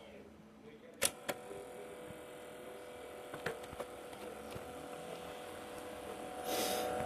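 Broken audio player humming instead of playing: a couple of clicks about a second in, then a steady hum of several fixed tones, with a short hiss near the end.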